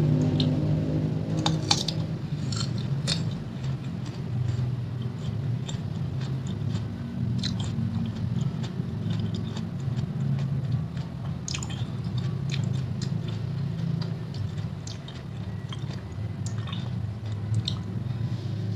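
Close-up chewing and biting of crunchy raw fruit from a rujak buah fruit salad, with irregular crisp crunches throughout, over a steady low hum.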